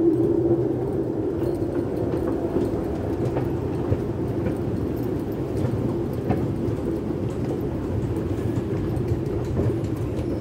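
Steady low mechanical drone of a running escalator in an underground train station, with a few faint clicks.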